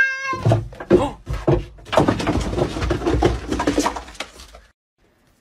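A cat's meow ending just after the start, followed by a run of knocks and thumps and then a stretch of clattering, bumping noise that stops abruptly near the end.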